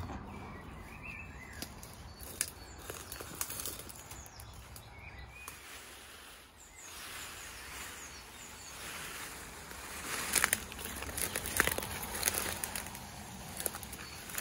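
Woodland ambience: an even outdoor hiss with a couple of faint bird chirps, then irregular rustling and crackling from about ten seconds in.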